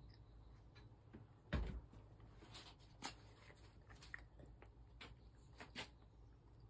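Faint handling sounds: a soft thump about one and a half seconds in, then scattered light clicks and scrapes as a paintbrush works paint on a paper plate.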